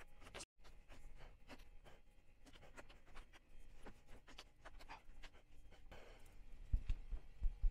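Primary tufting cloth being pulled taut by hand and pressed onto the edge of a tufting frame: faint scratching with many small clicks, and a few dull low thumps near the end.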